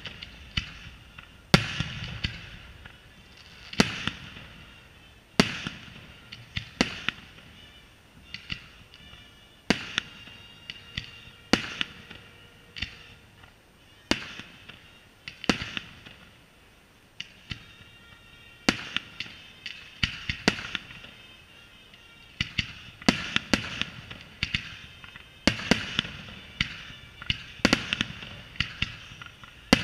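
Aerial firework shells bursting one after another: sharp bangs at irregular intervals, each trailed by a brief hiss, coming faster and denser near the end.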